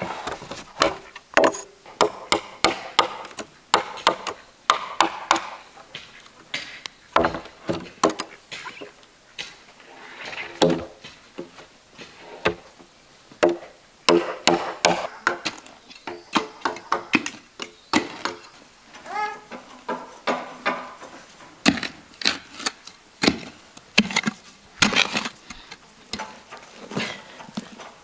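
Machete chopping green bamboo culms: an irregular series of sharp strikes, about two a second, some followed by a brief ringing tone.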